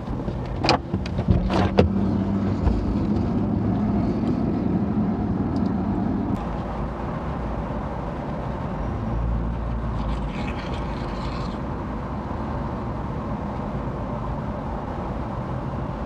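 Car cabin noise while driving: steady engine and road noise heard from inside the car. Two sharp clicks come about a second apart near the start.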